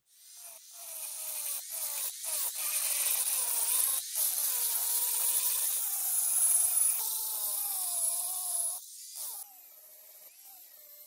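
Angle grinder grinding the rusty steel face of a forged hammer head. Its whine wavers in pitch as the disc is pressed on and eased off, dips out briefly several times, and is quieter near the end.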